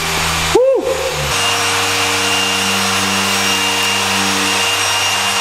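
Steady whirring machine noise with a low hum, a fan or motor running without let-up. It dips briefly about half a second in, and the hum shifts slightly just after.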